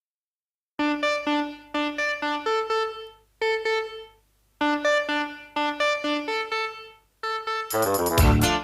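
Song intro: a solo electronic keyboard plays a melody of single, decaying notes in short phrases, and the full band with drums comes in near the end.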